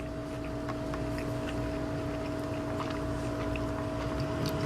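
Steady machine hum with a constant low tone and a low rumble underneath, with a few faint ticks scattered through it.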